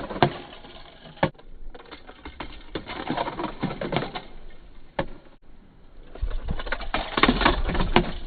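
Hard plastic toys being handled: rapid, irregular clicking and clattering with a few sharp knocks, busiest near the end.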